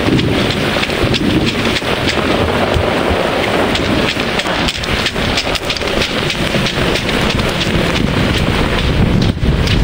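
Heavy downpour: a dense, steady rain hiss with many sharp drop impacts close to the microphone, over a low rumble of wind on the microphone.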